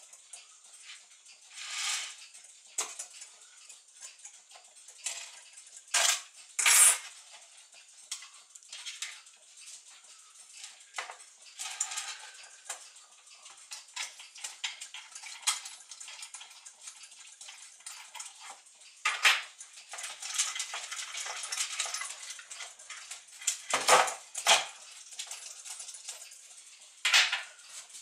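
Brass parts of a Gustav Becker floor clock's movement being handled and taken apart: irregular metallic clicks and clinks, with a few louder knocks about six seconds in and again near the end.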